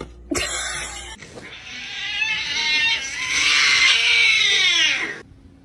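An animal's long, drawn-out call lasting about four seconds, growing louder and then sliding down in pitch as it ends. A short burst of noise comes just before it.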